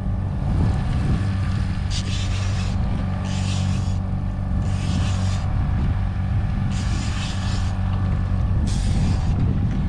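Boat's outboard motor running steadily, with short bursts of hiss every one to two seconds.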